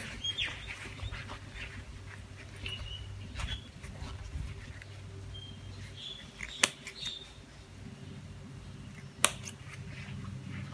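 Scissors snipping the binding strings off a tied, indigo-dyed silk scarf bundle: a few sharp snips, the two loudest about six and nine seconds in. Faint short high chirps come between them.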